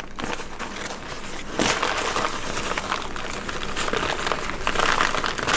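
Packing paper crinkling and rustling as it is unwrapped from around an orchid's roots, a continuous run of crackly rustles with a louder crinkle about one and a half seconds in.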